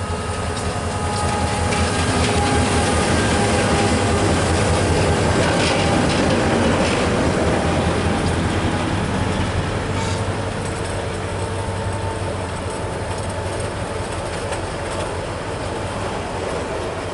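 A diesel locomotive passing close by with its engine droning, followed by passenger coaches rolling past, wheels clacking and knocking over the rails with a faint squeal. The track here is a broken rail line. The noise is loudest as the locomotive goes by in the first half, then eases to the steadier rolling of the coaches.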